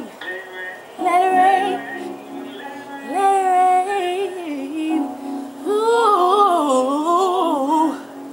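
Gospel singing: a voice sings three wordless phrases of long held notes and melismatic runs, over a steady held accompanying note.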